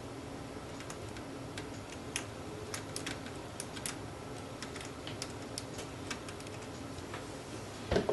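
Irregular small clicks and ticks from handling a needle-tipped plastic flux bottle, over a steady low hum, with one louder thump near the end.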